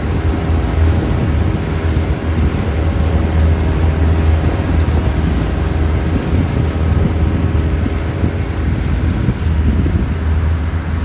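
Motorboat engine running steadily at a constant speed, with wind buffeting the microphone.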